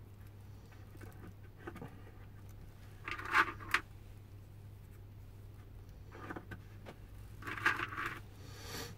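Plastic clothespins and a glued kerfed lining being handled at the rim of a wooden oud bowl: two short bursts of clicking and scraping, about three seconds in and again near the end, with a few lighter ticks. A steady low hum runs underneath.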